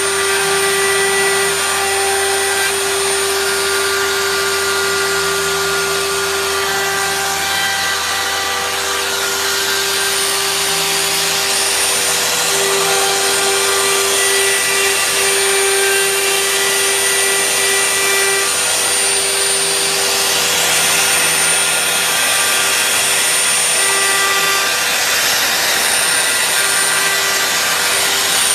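CNC router spindle running steadily with a fixed-pitch whine while its bit carves into a wooden plaque, over the continuous noise of a dust-collection vacuum drawing chips through the clear dust shoe.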